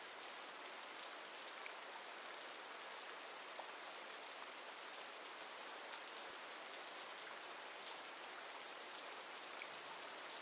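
Steady rain falling, an even hiss with scattered soft drop ticks.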